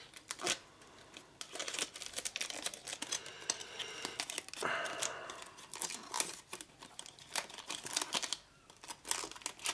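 Plastic model-kit sprues being handled: the clear-parts sprue clicks and knocks against the grey sprue, with crinkling plastic rustles. The clicks are scattered and sharp, and there is a longer rustle about five seconds in.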